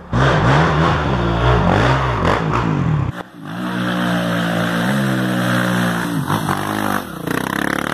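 Dirt bike engines revving on an off-road trail. First one engine blips up and down, then after a cut about three seconds in a dirt bike rides down the trail, its engine note rising and falling with the throttle.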